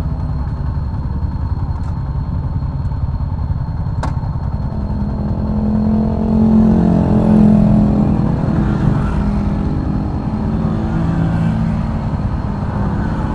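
Motorcycle engines idling in a stopped line of bikes. Between about five and nine seconds in, a motorcycle engine swells and its pitch rises and falls as it goes by. There is a single sharp click about four seconds in.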